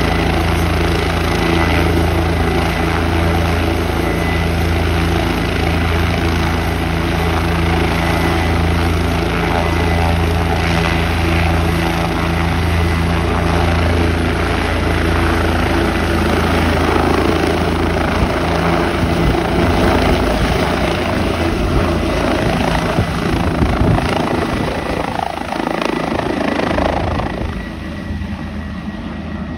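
Turbine helicopter running on the ground with its rotor turning: a loud, steady, pulsing low hum. About two-thirds of the way through, the steady tones break up into a rougher rush, and the sound grows fainter near the end.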